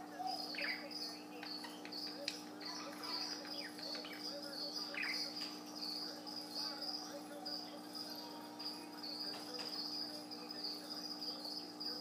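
Budgerigar chattering softly with a high, broken warble and short falling chirps every few seconds.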